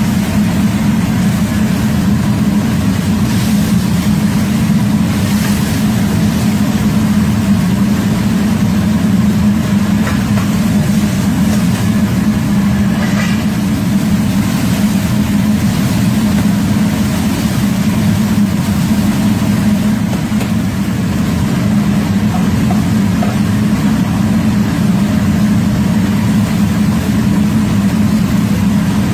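Commercial wok stove running at high flame, a loud, steady low rumble of gas burner and blower that does not change.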